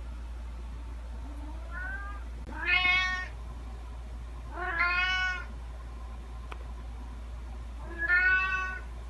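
Domestic cat meowing: a faint short meow about two seconds in, then three loud, drawn-out meows spaced a couple of seconds apart, the last near the end.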